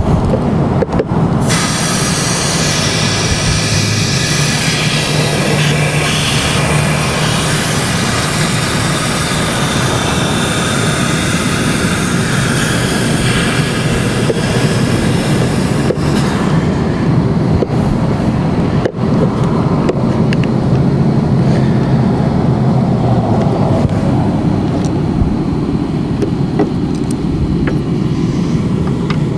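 Loud, steady mechanical running noise, with a hiss over it that drops away about sixteen seconds in.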